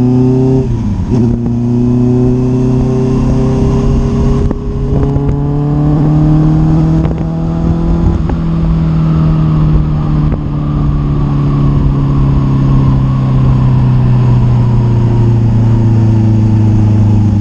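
A Honda CBR650 inline-four sportbike engine running under way at steady road speed. The revs dip briefly about a second in, climb slowly for several seconds, then ease off gradually. Wind rushes over the microphone throughout.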